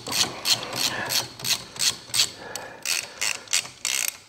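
Hand ratchet with a T30 Torx bit backing out a brake-pad retaining pin on a UTV caliper: the pawl clicks in a steady run, about three or four clicks a second, turning into a quicker rattle near the end.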